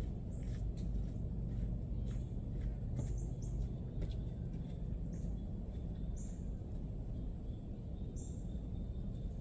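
Outdoor ambience: a steady low background rumble with a few short, high bird chirps scattered through it.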